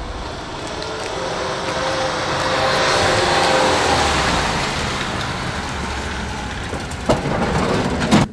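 Yellow Fiat Doblo taxi van driving past, its engine and tyre noise swelling to its loudest about three to four seconds in and then easing off. Two sharp thumps near the end, the second the louder.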